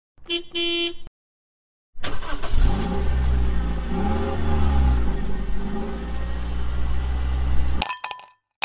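A short pitched blip, then an engine revving for about six seconds, its pitch rising and falling before it cuts off sharply.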